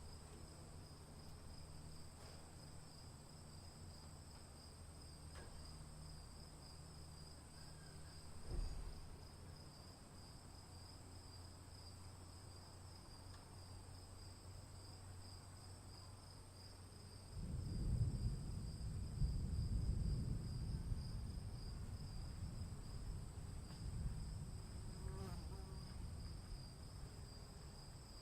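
Steady high trilling of insects, with a low rumble of distant thunder starting a little past halfway and dying away over about ten seconds; a brief low thud comes about eight seconds in.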